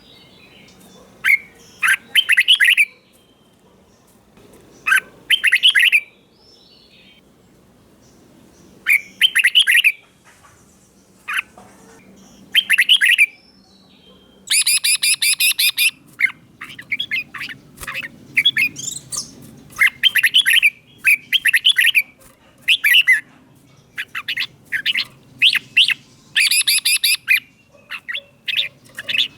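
Red-whiskered bulbul singing: short, bright warbled phrases every second or two, coming closer together in the second half, with one denser, harsher phrase about halfway through.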